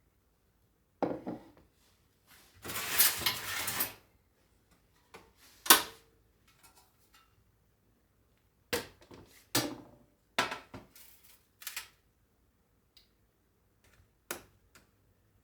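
Scattered knocks and clinks of objects being handled in a small room, with a longer noisy burst lasting about a second and a half near the start and a sharp loud click a little before the middle.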